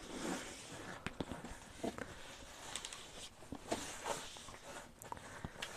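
Small clicks, knocks and rustling of stacked plastic plates being wiped out with a paper towel and handled on a table.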